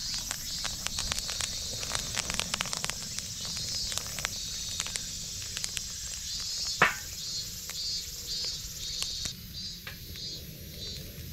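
Small wood campfire of twigs and conifer foliage crackling, with frequent sharp pops and one loud snap about seven seconds in. Insects chirp steadily in a rhythmic high trill behind it.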